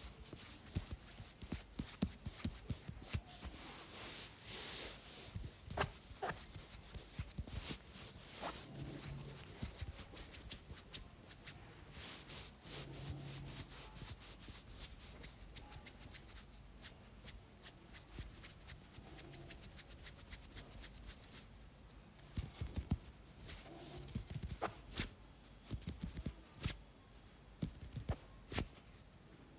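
Hands massaging a head: fingertips rubbing and pressing on the skin of the forehead, temples and scalp, with many small sharp clicks and crackles scattered throughout.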